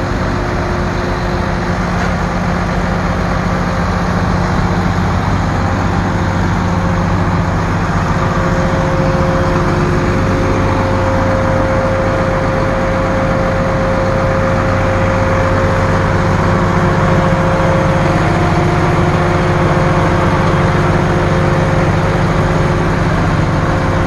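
MAN TGS 26.400 truck's diesel engine running steadily, with a steady whine over it that is strongest in the middle stretch.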